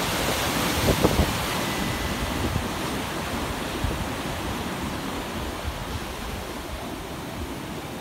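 Ocean surf washing as a breaking wave's white water spreads out, with wind buffeting the microphone and a few louder jolts about a second in, then slowly fading.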